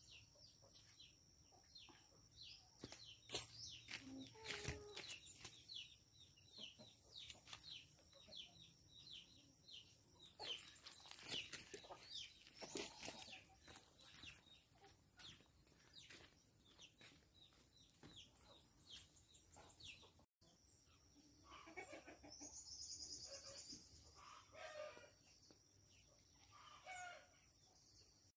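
Faint farmyard sounds: chickens clucking, with frequent short chirps of small birds throughout and longer pitched fowl calls in the later part.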